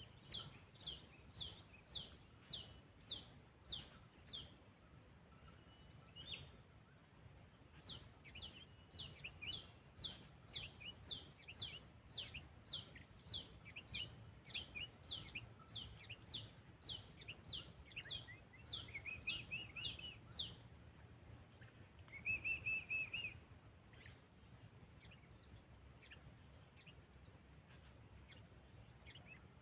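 Sooty-headed bulbul (kutilang) calling: a sharp, falling note repeated about twice a second in two long runs, then a short warbled phrase near the end.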